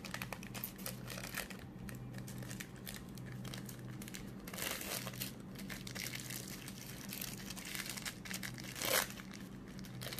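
Thin baking paper crinkling and rustling under the hands as it is folded over and pressed along a jam-spread sponge sheet to roll it up, in irregular crackles with one louder crinkle near the end.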